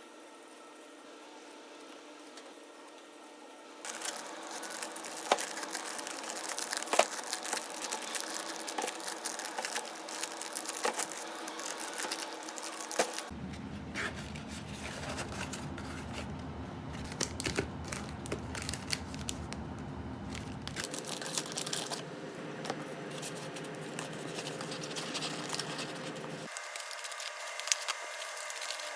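Crinkling and rustling with many scattered sharp clicks and taps, like hands at work, over a background hum that changes abruptly several times.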